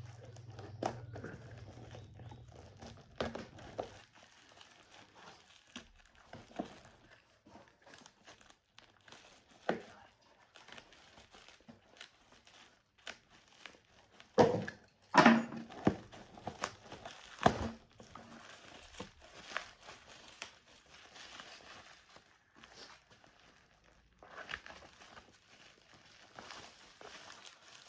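Plastic parcel packaging being handled, crumpled and torn open by hand: scattered crinkles and clicks, with a louder stretch of crackling handling about halfway through.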